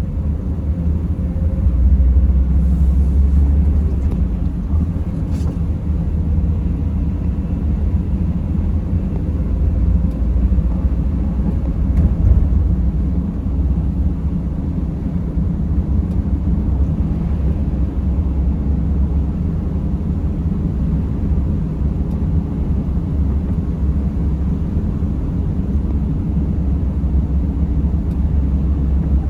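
Vehicle driving: steady low rumble of engine and tyres on the road, swelling slightly a couple of seconds in and briefly near the middle.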